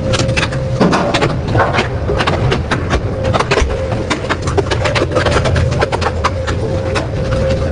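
Double-shaft industrial shredder breaking up PVC pipe: rapid, irregular sharp cracks and snaps of the plastic being torn apart over the steady low drone of the running machine.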